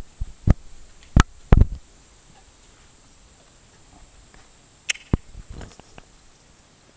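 Irregular sharp knocks and thumps, a cluster in the first two seconds and another about five seconds in, with faint background noise between.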